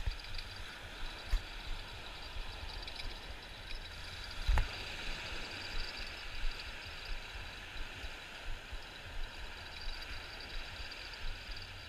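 Seaside night ambience: a low wind-and-surf rumble with a steady high-pitched night chorus over it. Scattered soft knocks of gear handling, the loudest about four and a half seconds in.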